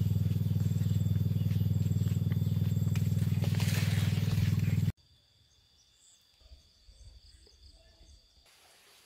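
A loud, low humming drone with a fast, even pulse cuts off suddenly about five seconds in. Only faint outdoor background follows.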